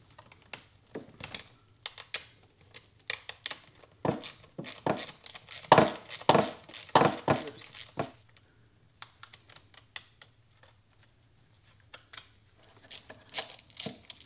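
Irregular clicks, taps and knocks of a hand tool and metal cable lugs as the cables are unfastened from the battery's BMS terminals. The clicks come thickest in the middle and again near the end, with a quiet spell between.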